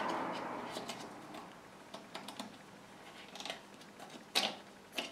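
Scattered light clicks and taps of a grooved drive belt and hands working against the lathe's metal pulleys and housing as the belt is moved by hand onto the middle pulley, with a soft rustle at first and one louder knock near the end.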